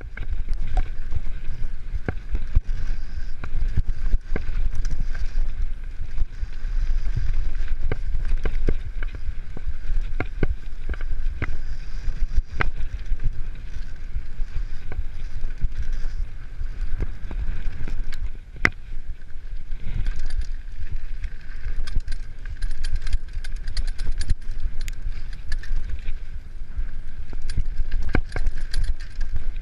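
Mountain bike ridden down a dirt singletrack, heard from a camera on the bike or rider: a steady low rumble of wind and tyre vibration with frequent sharp clicks and knocks as the bike rattles over bumps, and a faint steady high whine.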